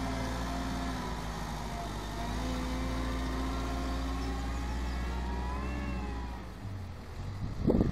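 Diesel engine of a compact wheel loader running under load as it pushes and levels soil, its pitch rising and falling a little. Near the end the engine note drops away and a short, loud rumbling burst follows.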